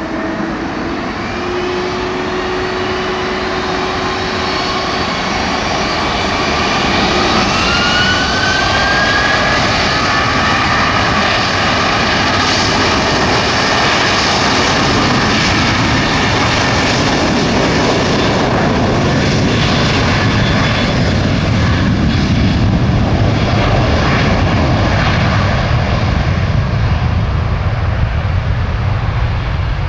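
Jet engines of a Korean Air Airbus A330 running near idle as the airliner rolls off the runway after landing. A steady jet roar grows louder as it nears and then holds, with a whine that glides upward in pitch in the first third.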